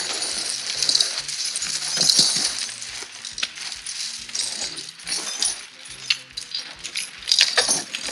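Master Power 9060 steel snow chains clinking and rattling as they are handled and fitted around a tyre. The rattling is loudest about two seconds in and again near the end.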